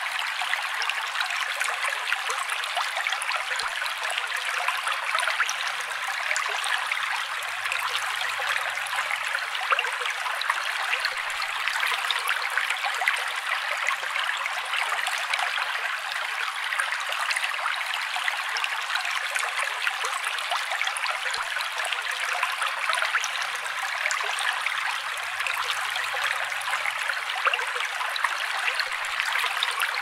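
Steady trickling, bubbling water, an even fizzy crackle with no deep sound in it.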